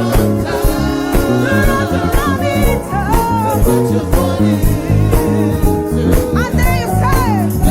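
Live contemporary gospel praise music: singing voices over band accompaniment with a steady beat.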